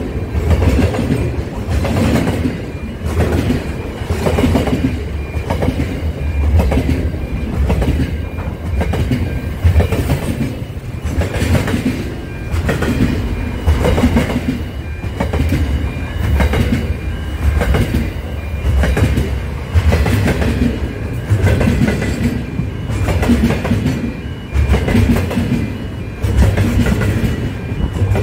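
Container wagons of a long intermodal freight train passing close by at speed: a loud, steady rumble with a rhythmic clatter of wheels about once a second and a faint steady squeal from the wheels in places.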